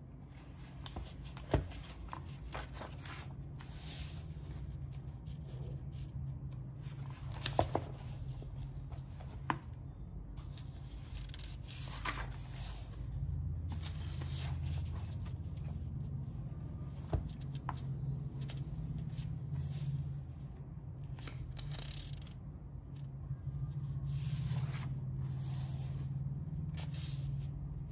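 Paper pages of a spiral-bound sketchbook being handled and turned, with rustling and scraping and a few sharp clicks at irregular moments, over a steady low hum.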